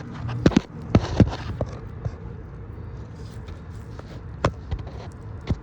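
Scattered sharp knocks and taps, several in the first second and a half and two more near the end, over a steady low hum, typical of tools and metal parts being handled during hands-on work on a car.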